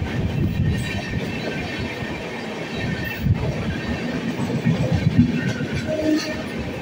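MEMU electric multiple-unit train running on the rails, a steady low rumble.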